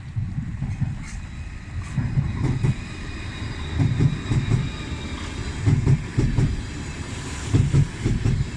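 Train wheels running over rail joints: a steady rumble with groups of clickety-clack knocks about every two seconds.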